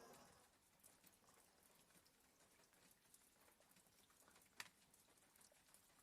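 Near silence between a sleeping border collie's soft snoring breaths: one breath fades out at the very start, then only faint scattered ticks, with one sharp click about four and a half seconds in.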